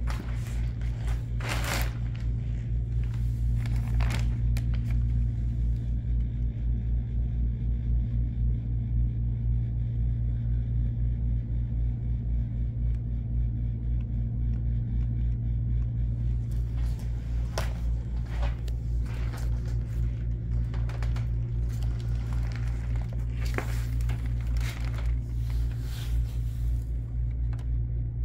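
A steady low hum throughout, with plastic wrapping rustling and a few sharp clicks in the first seconds and again from about 17 seconds in.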